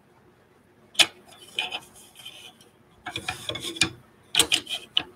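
Light clicks and taps of wooden dowels and a metal binder clip as a woven band is handled and fitted back between the dowels: one about a second in, then a run of them in the second half.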